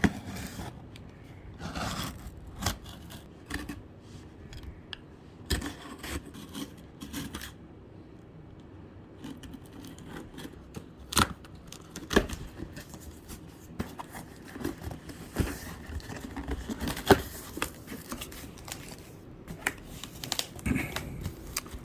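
Cardboard box of a Cooler Master NR200 PC case being opened by hand: tape and cardboard tearing and scraping, with scattered sharp clicks and knocks as the flaps are handled.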